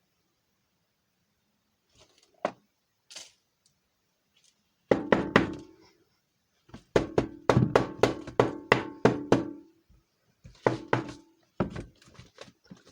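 A drilled-out Master Lock No. 5 padlock being knocked against a hard surface to shake its pins out. The knocks are sharp, metallic and ringing, in three bursts, the middle one a fast run of about four knocks a second.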